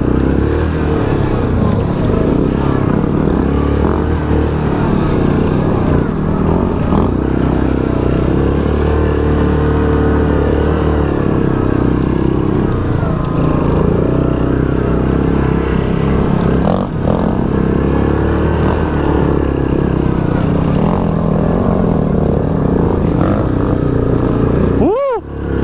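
Yamaha Grizzly 700 ATV's single-cylinder four-stroke engine running under load up a steep trail, its pitch rising and falling with the throttle. The sound dips briefly near the end.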